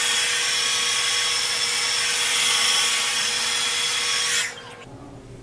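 Handheld hair dryer blowing steadily, a rush of air with a steady whine, rough-drying long hair. It is switched off about four and a half seconds in and its motor winds down.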